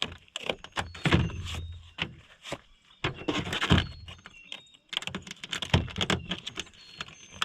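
Irregular clicks, knocks and rattles of an angle grinder and its parts being handled; the grinder is not running.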